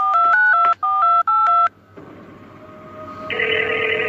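Phone number being dialed: a quick run of about eight touch-tone keypad beeps in three groups. After a short lull, the ringing tone of the call going through starts about three seconds in.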